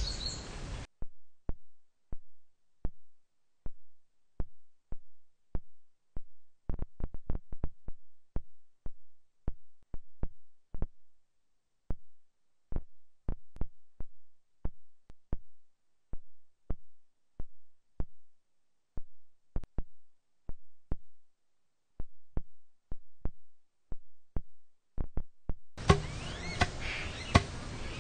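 Short, sharp knocks or taps at an uneven pace, about one or two a second and sometimes in quick clusters, each dying away fast, with dead silence between them.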